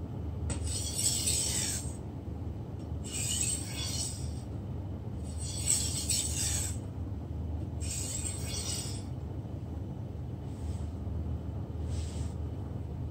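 Long single-bevel fish processing knife (kaibōchō) being stroked across a whetstone: a gritty scraping hiss on each pass, about one stroke every two seconds. The last few strokes are lighter and shorter. A steady low hum runs under them.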